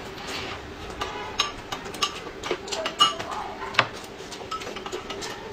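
Close-up eating at a table: chewing and mouth noises with many small sharp clicks, and a spoon clinking against a glass cup, loudest about three and four seconds in.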